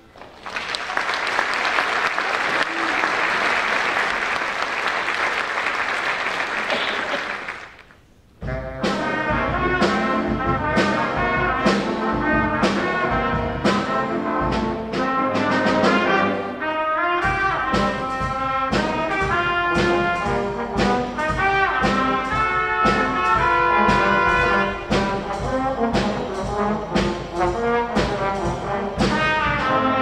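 Audience applauding for about seven seconds. After a short pause, a school band of trumpets, trombones and saxophones starts a piece, playing chords over a bass line with a steady beat.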